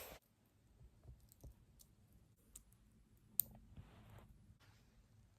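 Faint small clicks and taps of ear-gauge jewelry being handled and worked out of the earlobe, with one sharper click a little past the middle and a brief soft rustle just after it.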